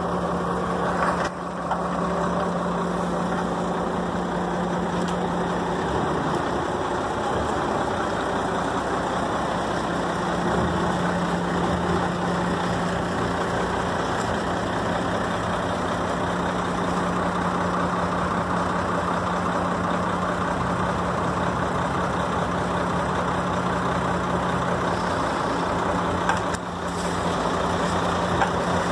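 Diesel engine of a 1996 Ford L8000 dump truck running steadily while the hydraulic hoist tips the dump body up. The hum dips briefly twice, about a second in and near the end.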